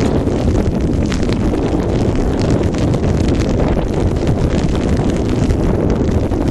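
Wind buffeting the microphone: a loud, steady low rumble with scattered small crackles.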